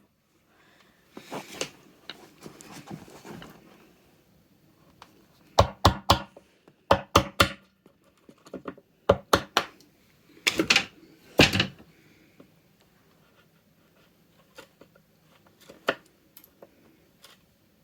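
A mallet striking a chisel to chop out notch waste in a wooden board: sharp blows in little bunches of two to four, with pauses between. The loudest blows come about ten to eleven seconds in.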